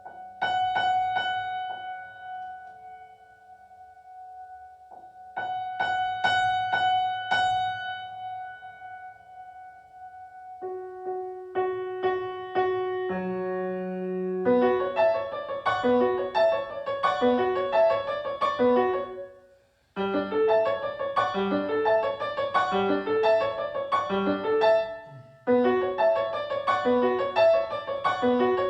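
Keyboard music: held chords struck a few times, then a steady run of fast repeating notes from about halfway, pausing briefly twice.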